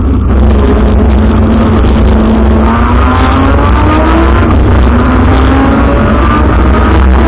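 Rally car's engine heard from inside the cabin, pulling hard under acceleration over a heavy low rumble. The engine note climbs steadily, drops at a gear change a little past halfway, then climbs again.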